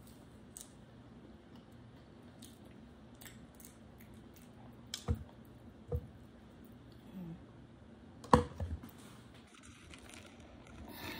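Banana being peeled and broken by hand, with several short soft thumps as pieces drop into the portable blender's cup. The loudest thump comes about eight seconds in.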